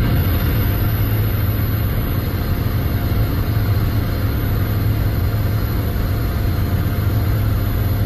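Helicopter running: a loud, steady low drone of rotor and engine with an even rush of noise.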